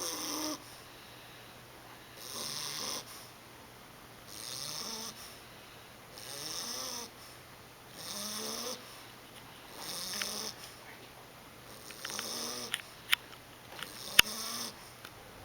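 English Bulldog puppy snoring, a snore roughly every two seconds, about eight in all. Two sharp clicks near the end.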